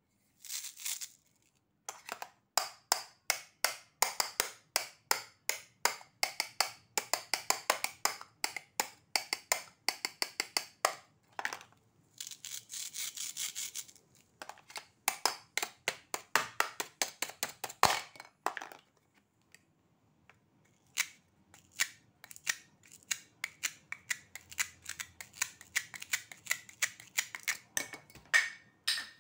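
Velcro pads on the halves of a plastic toy hot dog being peeled apart and pressed together over and over: runs of fast crackling ticks, with one longer continuous rip about twelve seconds in.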